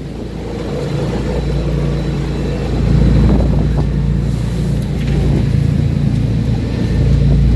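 Boat's engine running steadily under way, a low drone with the rush of wind and sea over it, getting louder about three seconds in.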